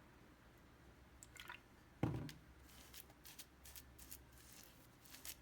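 Hands kneading and stretching icy slime, giving faint squishing sounds and short clicks, with one low thump about two seconds in.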